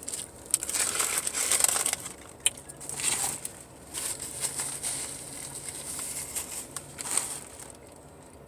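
Irregular bursts of crinkling and crunching from eating and handling food and its wrapping, loudest in the first two seconds.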